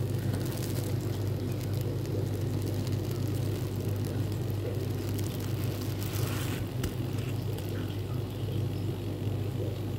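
Steady low hum of aquarium equipment such as an air pump or water pump, with a short hiss about six seconds in.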